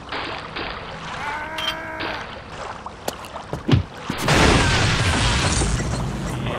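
Water sloshing and splashing in a bathtub, then a sharp hit just before four seconds followed by loud, continuous electrical crackling and hissing: a man being electrocuted in the bath.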